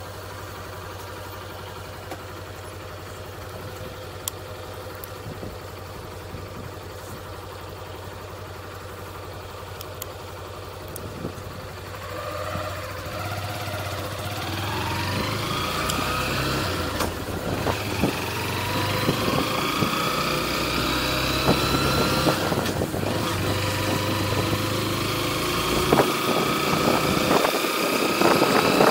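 Motorcycle engine running at a low, steady pace, then rising in pitch and getting louder as it accelerates about twelve seconds in, before holding a higher steady note. Wind noise on the microphone grows toward the end.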